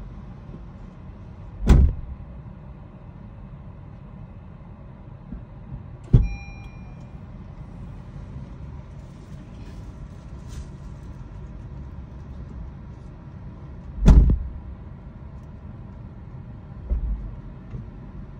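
Car doors shutting with heavy thumps over a steady low rumble inside a parked car: three loud thumps about 2, 6 and 14 seconds in and a softer one near the end, the second followed by a short electronic beep.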